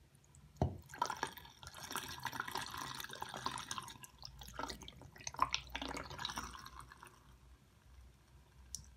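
Water being poured out of a glass jar into a porcelain bathroom sink, splashing for several seconds and tapering off about seven seconds in. A single knock comes just before the pour starts.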